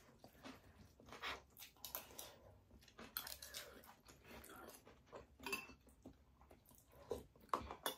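Quiet chewing and mouth sounds of people eating fried rice, with a few soft clicks and crunches scattered through.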